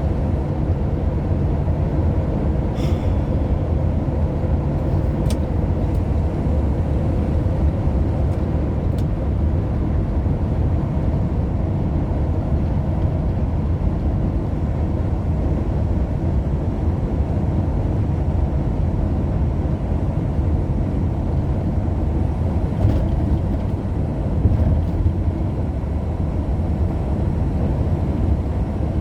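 Steady drone of a moving car: road and engine noise, a continuous low rumble, with a few faint ticks.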